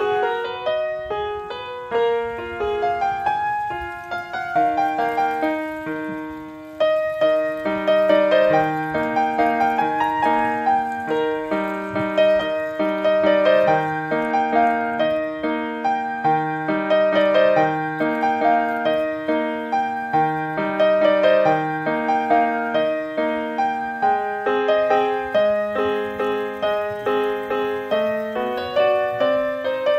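Background piano music: a flowing melody of separate notes over a repeating lower figure.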